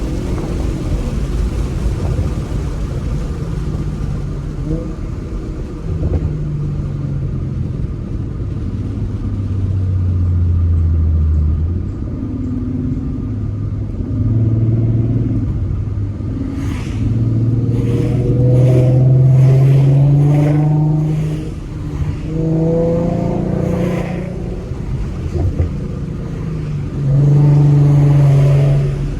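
A 2014 Ford Mustang's 3.7-litre V6 running through BBK shorty headers and a Roush axle-back exhaust while driving, its note rising and falling in pitch as the throttle comes on and off. The loudest climbs come around two-thirds of the way in and again near the end. For several seconds in the second half, a light ticking at about two a second runs over the engine.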